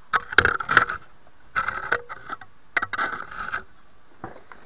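Hammer striking a Honda Civic's steel lower control arm to break it loose from the ball joint: sharp metallic blows with a short ring, in three quick bunches.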